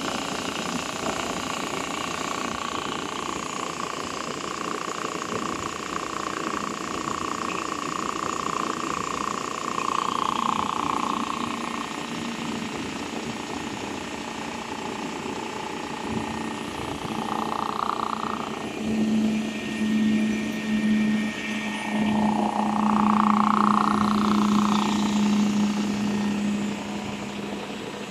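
Film slitting machine running, a steady mechanical hum from its motors and rollers as the printed plastic film web runs through. A higher tone swells a few times, and a lower hum comes in about halfway.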